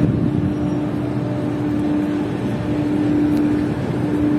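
Steady noise of a moving car: low road and engine rumble with a constant hum that drops out briefly a few times.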